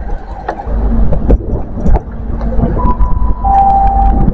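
HST Class 43 power car running in with a steady diesel rumble. About three seconds in it sounds its two-tone horn: a higher note, then a lower one, each about half a second long.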